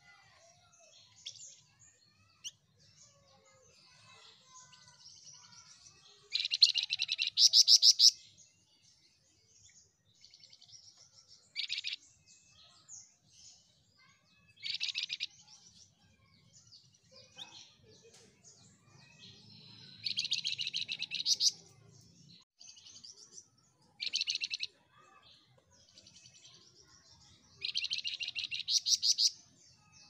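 A caged flamboyan songbird singing. About six loud, fast rattling bursts of chirps, each up to two seconds long, come at irregular gaps, with soft twittering between them.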